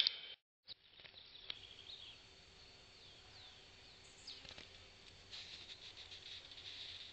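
Faint outdoor ambience with a few short, high chirps and scattered light clicks, after the sound drops out for a moment near the start.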